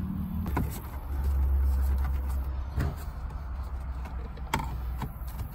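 Plastic dash trim on a Ford F-150 being pried loose: a few sharp clicks as the side cover's clips give, over a steady low rumble.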